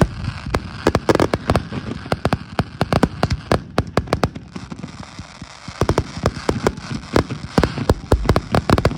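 Fireworks going off in a dense, irregular run of sharp bangs and pops over a steady crackle.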